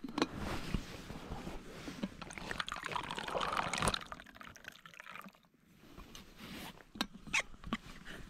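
Hot tea poured into a cup, the pour rising in pitch as the cup fills over the first four seconds, then a few light clicks and knocks near the end.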